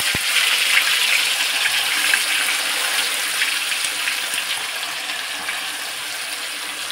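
Wet onion-and-spice masala paste sizzling hard in hot oil in a kadai, a dense crackling hiss that slowly eases off as the paste begins to fry. A single knock sounds right at the start.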